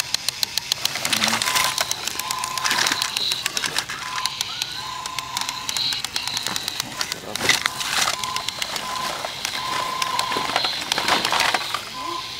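Rapid even ticking of a small clockwork toy mechanism, with short high electronic beeps repeating again and again and a couple of louder knocks.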